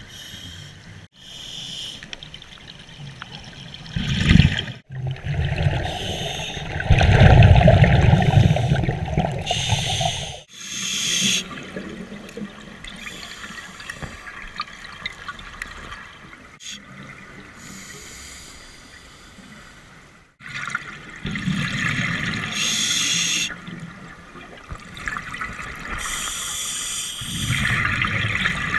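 A scuba diver's exhaled bubbles bubbling and trickling in bursts a few seconds long, heard underwater through the camera housing; the sound cuts off abruptly several times.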